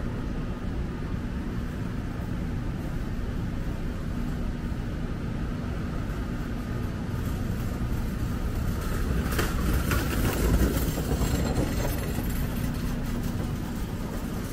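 City street traffic: a steady engine hum and rumble, with a vehicle passing close and growing louder about nine to eleven seconds in, then fading.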